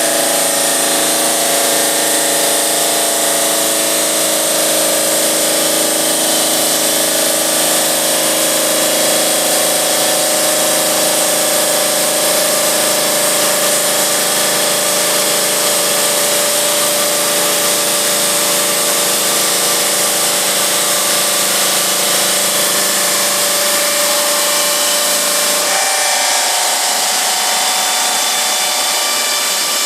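GMM Brio Easy CNC bridge saw running steadily as it cuts 4 cm granite, a loud hiss with several held tones. About 25 seconds in, the tone shifts: the low hum drops away and a new higher note comes in.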